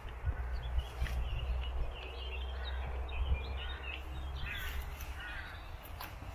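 Crows cawing, a run of short harsh calls in the second half, with small birds chirping, over a low steady rumble.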